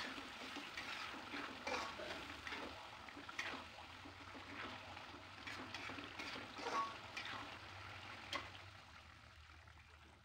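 Thick tomato-chilli sambal sizzling in a metal wok as it cooks down, with a metal spatula stirring it and scraping and knocking against the pan. The stirring stops and the sound dies down near the end.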